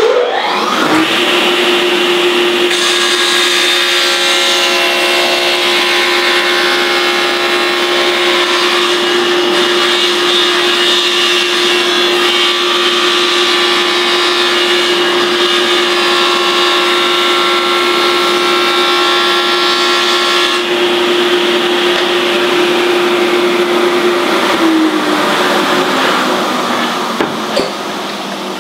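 Table saw switched on and running with a steady hum, its blade cutting a shallow groove into a wooden chair-seat blank that is slid and pivoted across it on a jig, with harsher cutting noise from about three seconds in until about twenty seconds. Near the end the saw is switched off and the blade winds down.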